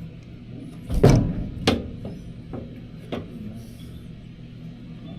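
A few sharp knocks and clatters, the loudest about a second in and another shortly after, over a steady low hum.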